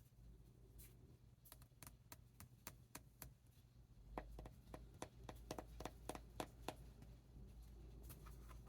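Thick silken-tofu-texture slime being worked in the hands, giving a run of crisp clicks and small bubble pops. The clicks are spaced out at first, then come faster for a couple of seconds starting about four seconds in.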